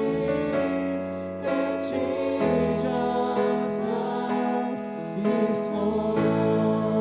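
Contemporary worship song playing, with sustained chords that change every second or two.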